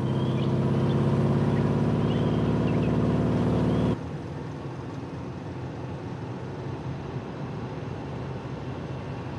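Car engine running steadily as the car drives along, with faint high chirps over it. About four seconds in it drops suddenly to a quieter, muffled engine hum as heard inside the car's cabin.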